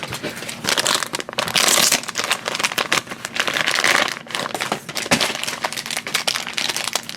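Small plastic blind-bag toy packet being crinkled and opened by hand: dense, continuous crackling with many small clicks.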